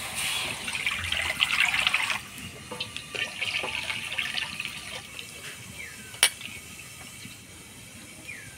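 Water pouring and splashing into a pot of potatoes being readied for boiling. It is heaviest for the first two seconds, then lighter splashing fades out. A single sharp click comes about six seconds in.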